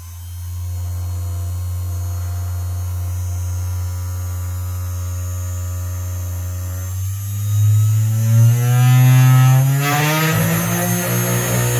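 800 W CNC spindle motor running with a steady hum at about 5,500 rpm, then speeding up in steps in the second half as its speed knob is turned up, the whine rising in pitch and getting louder.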